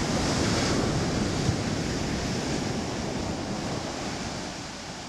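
Ocean surf breaking and washing up onto a sandy beach, a steady rushing wash that fades out gradually toward the end.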